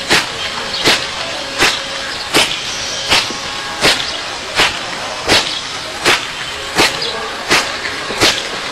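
Open-palm strikes in iron-palm style, a sharp slap coming down on the concrete slab and the green objects on it about every three-quarters of a second, twelve times in an even rhythm, over steady outdoor background noise.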